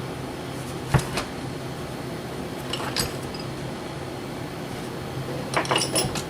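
A few sharp knocks and clatters of objects being handled and set down on a workbench: one loud knock about a second in, a lighter click in the middle, and a quick cluster of several knocks near the end. A steady low hum runs underneath.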